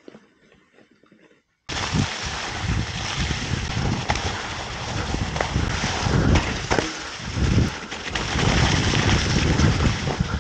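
Mountain bike ridden over a snowy trail, heard from a camera mounted on the bike: wind rushing over the microphone with tyre rumble and frequent knocks and rattles from bumps. It starts suddenly after a faint, nearly quiet first second and a half.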